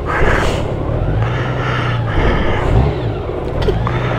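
Honda Gold Wing's flat-six engine idling at low speed, with a short rise and fall in revs a little under three seconds in.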